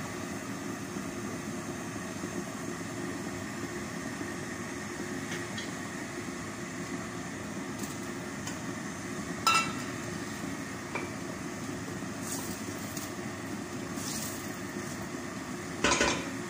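A steady low fan hum. Over it, a wooden spatula knocks sharply on a stainless steel pot of onions sautéing in oil: once about nine and a half seconds in and twice near the end.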